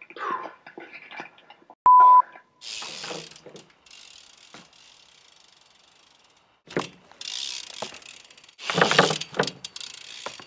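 BMX bike's rear hub ratchet clicking rapidly in spells as the rear wheel freewheels, with some louder clattering of the bike in between. A short, loud, steady beep sounds about two seconds in.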